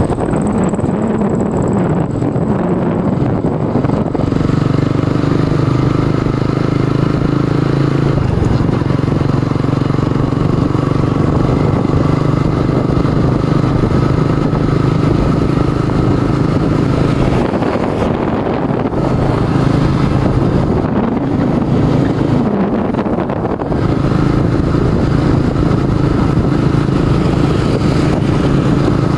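Motorcycle engine running at road speed, a steady drone with wind rush on the microphone. The engine note drops and climbs again twice in the second half.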